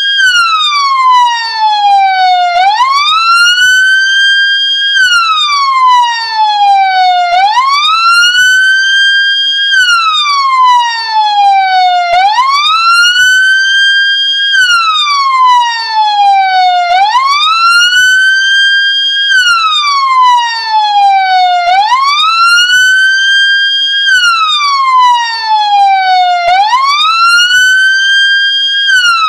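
Ambulance siren in a slow wail: the tone sweeps up quickly, holds about a second at the top, then falls slowly, the cycle repeating about every five seconds. It is a loud, clean siren with no engine or traffic noise under it.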